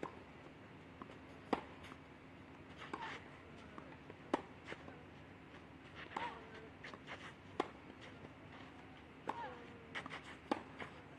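Clay-court tennis rally: racket strikes on the ball, one about every second and a half, going back and forth between two players. Several of the shots come with a short, falling grunt from a player.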